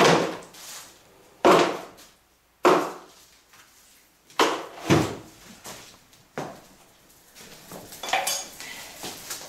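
Plastic bucket, hand truck and metal plastering tools being handled and set down: a string of sharp knocks and clatters about a second apart, with a rattling clink of tools near the end.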